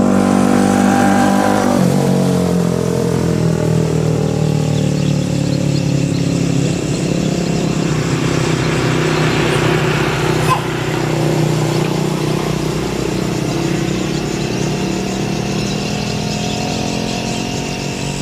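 An engine running steadily. Its pitch drops about two seconds in as it slows, then holds fairly level.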